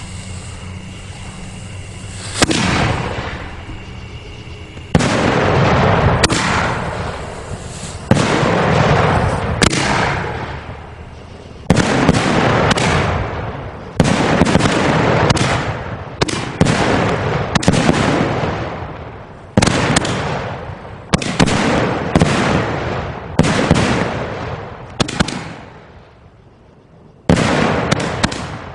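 A rack of 1.75-inch canister salutes firing in sequence: a long run of loud, sharp bangs starting about two seconds in, spaced unevenly a second or two apart, each trailing a long echo.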